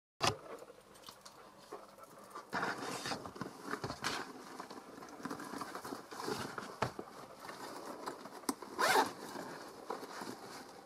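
Top zip of a Rowallan leather shoulder bag being worked open in several short, uneven strokes, with the rustle of the leather being handled; the loudest zip stroke comes near the end.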